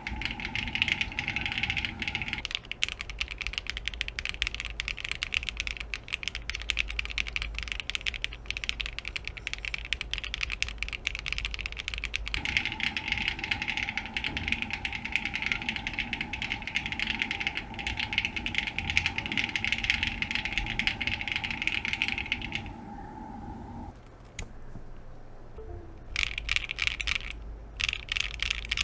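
Continuous fast typing on a Geon Frog TKL mechanical keyboard with HMX Macaron long-pole linear switches on an aluminium leaf-spring plate and WOB keycaps: a dense, rapid stream of keystroke clacks. It thins out a little over 20 seconds in, then comes back as a few short separate bursts of keystrokes near the end.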